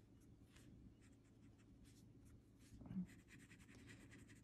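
Faint, repeated scratchy strokes of coloring on paper, with a brief soft voice sound about three seconds in.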